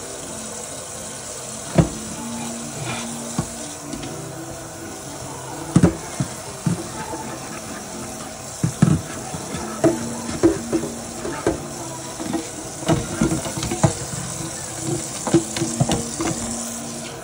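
Tap water running into a stainless steel kitchen sink while something is washed by hand, with irregular knocks and clatters of items against the sink, more frequent in the second half.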